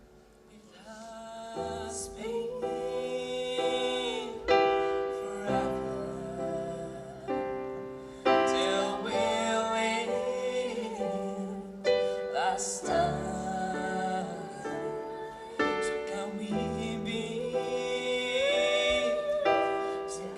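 A live band playing the slow instrumental opening of a song, led by piano or keyboard, with a gliding melody line over sustained chords. It starts quietly and fills out within the first couple of seconds.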